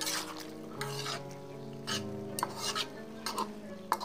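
Metal spatula stirring and scraping vegetables around a frying pan: a series of short scrapes against the pan over the light sizzle of the frying vegetables.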